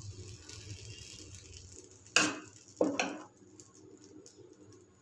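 A metal ladle's back faintly scraping as it spreads thin rice-flour and urad dal batter over an oiled tawa. About two seconds in come three short knocks, the loudest first.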